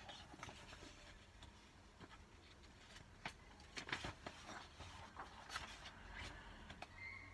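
Glossy magazine pages being turned by hand: soft paper rustling with a few short light ticks and slaps of the pages, most of them around the middle.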